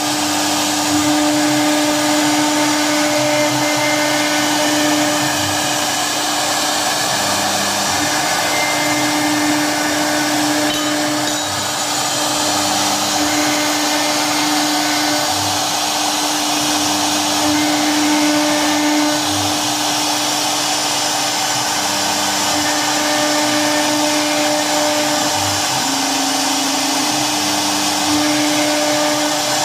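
CNC router spindle running at speed and cutting circles into a wood board. The spindle gives a steady high whine over the hiss of the bit in the wood, and short low hums shift pitch every second or so as the head travels.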